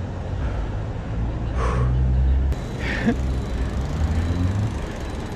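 Street traffic: a motor vehicle's engine hums low and steady. A short hiss comes about one and a half seconds in.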